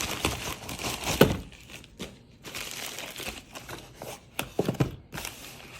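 Packaging being crinkled and rustled as a parcel is unboxed, with scattered sharp clicks and knocks of handling.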